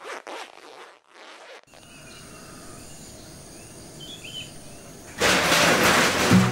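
A zipper on a leather jacket is pulled up in a few quick strokes, followed by quiet outdoor ambience with a couple of faint bird chirps. About five seconds in, a loud rushing noise starts, and a low, pulsing beat comes in near the end.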